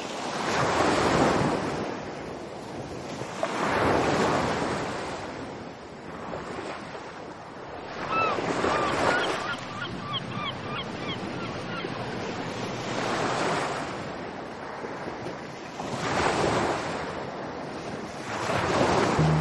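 Ocean surf: waves breaking and washing back, about six swells a few seconds apart. A run of short bird calls comes in about eight seconds in and lasts a few seconds.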